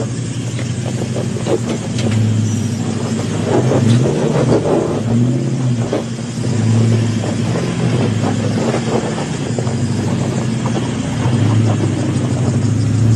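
Off-road SUV engine revving up and down under load as it climbs a steep, rocky slope, its pitch repeatedly rising and falling. Scattered clicks and crunches, typical of tyres on loose stones, run through it.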